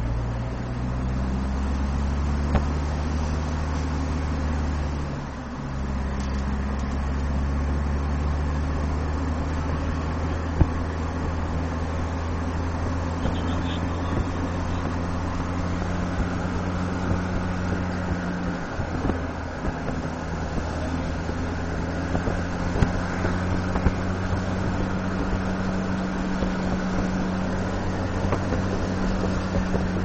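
Car engine hum and road noise from a moving car: a steady low drone over tyre and wind rush, dipping briefly about five seconds in.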